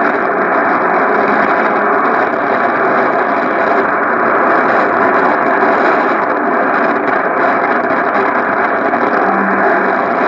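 Yaesu FRG-8800 shortwave receiver tuned to CNR 1 on 5945 kHz in the 49-metre band, playing steady, dense static and fading noise with the weak AM broadcast buried under it.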